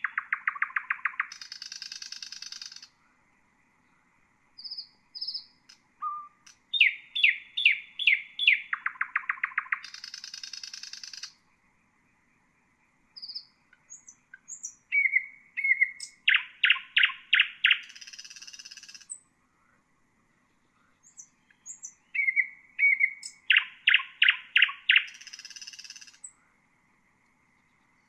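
Nightingale singing. Each phrase is a quick run of falling whistled notes, then a fast low trill and a harsh rasping buzz, with pauses of a few seconds between phrases.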